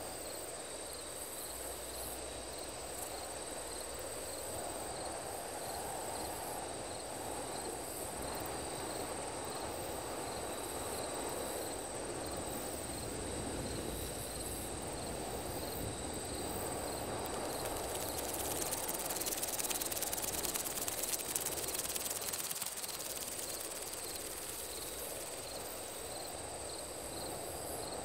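Sci-fi night ambience: crickets chirping about twice a second over a steady high-pitched tone and a low rumbling drone. A hiss swells in the upper range about two-thirds of the way through.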